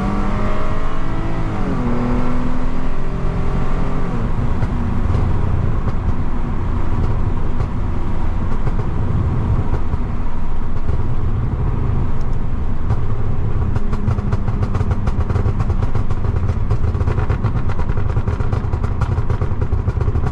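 Lexus IS250's 2.5-litre V6, ECU-tuned with a valved exhaust, revving up hard under acceleration and then falling back in pitch a couple of seconds in. It then settles into a steady low drone while cruising. In the second half a run of short crackles comes through, the kind of pops and bangs the tune adds.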